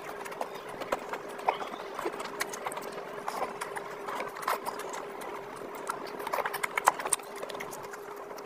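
Close-up eating sounds: wet chewing and mouth smacking as curry, rice and meat are eaten by hand, in many short irregular clicks and smacks, over a faint steady hum.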